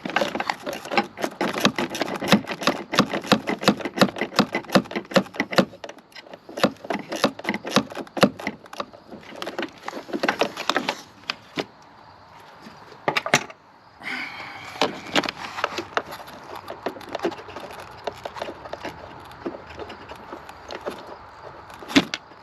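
Ratchet wrench clicking in fast runs, most steadily in the first six seconds, then scattered clicks and rattles of small metal parts and tools.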